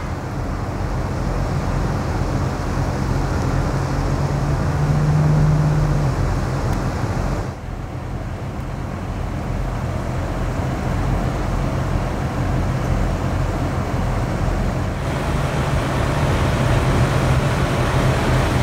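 Steady outdoor traffic noise with a low engine hum, no speech; the sound changes abruptly twice.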